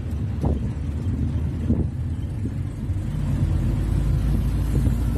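Steady low rumble of a moving vehicle's engine and road noise, heard from on board.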